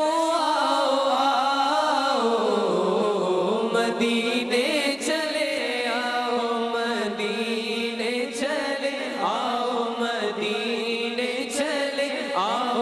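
Men's voices singing an Urdu devotional naat together in long, drawn-out melismatic phrases, with no breaks between them.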